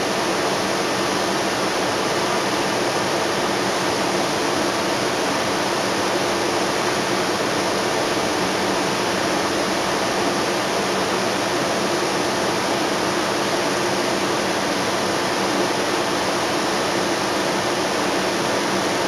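Steady cabin noise inside a 2010 NABI 31-LFW CNG transit bus with a Cummins L Gas engine and ZF transmission: engine, drivetrain and ventilation heard as an even rush with a faint low hum under it.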